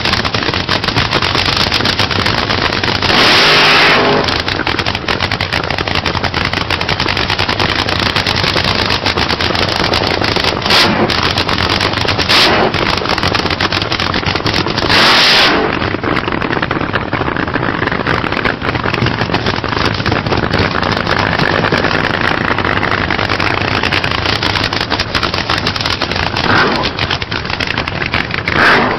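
Drag-racing cars at full throttle: loud, continuous engine noise with a few short, louder blasts along the way.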